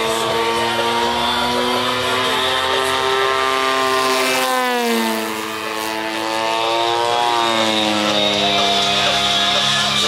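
Radio-controlled model airplane's engine and propeller running with a steady buzz. About halfway through the pitch slides down, then climbs back up a couple of seconds later as the plane throttles up again.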